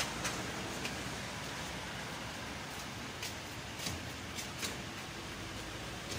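A few short, sharp clicks and taps over a steady background hiss, from hands and a tool working at the glass of a van's sliding door as it is freed from its adhesive.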